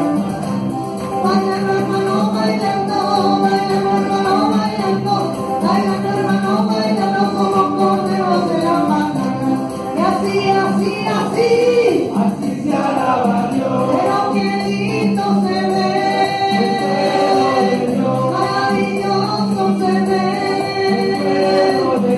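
Live Spanish-language Catholic praise song: an electronic keyboard with a steady beat, and voices singing along through microphones.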